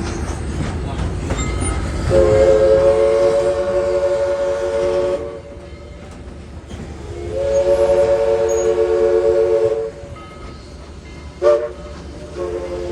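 Southern Railway 4501's Princeton three-chime steam whistle blowing one chord of three notes in the grade-crossing pattern: two long blasts, a short toot, then a fourth long blast starting near the end. A steady low rumble runs under it.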